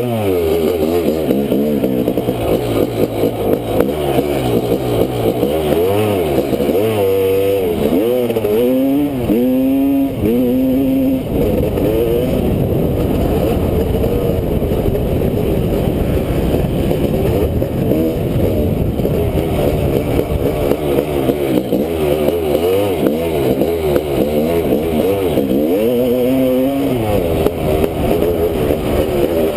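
2001 Honda CR500's single-cylinder two-stroke engine being ridden hard, its pitch rising and falling with the throttle and gear changes. There is a run of quick rev sweeps up and down about a third of the way in, and again near the end.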